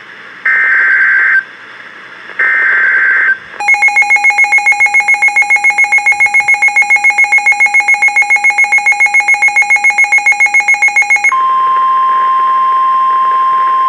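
Emergency Alert System alert on NOAA Weather Radio: two short buzzy bursts of SAME header data tones, then a rapidly pulsing two-pitch electronic alarm beeping about seven times a second for roughly eight seconds, then a steady single-pitch tone, the weather radio's warning alarm tone, heralding a severe thunderstorm warning.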